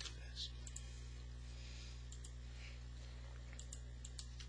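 Scattered clicks of a computer mouse and keyboard being worked: a few about half a second in and a cluster near the end, over a steady low electrical hum.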